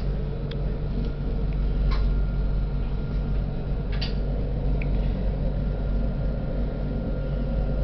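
Tram running along its track, heard from inside near the front cab: a steady low rumble with a few short clicks.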